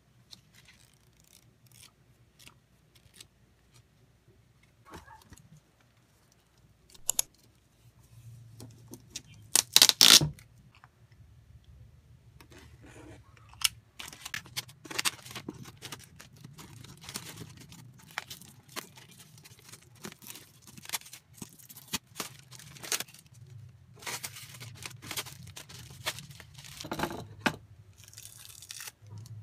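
Plastic packaging being crinkled and torn off desk items by hand, with one loud rip about a third of the way in and scattered clicks and knocks as things are handled on the desk, over a low background hum.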